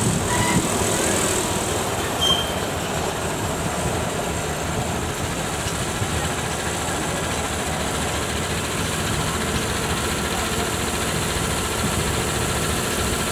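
Ride-on miniature railway locomotive, a diesel-outline engine, running steadily as it rolls along the small-gauge track and draws to a stop.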